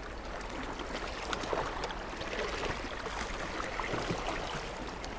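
Small waves lapping and trickling among shoreline rocks: a steady wash with scattered faint splashes and clicks.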